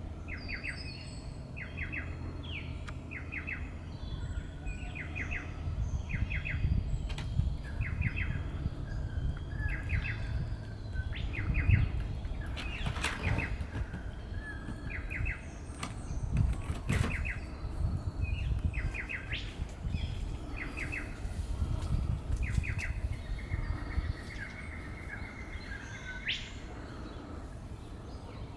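A bird calling over and over, each call a short rapid chattering trill, about once a second, over a low steady rumble.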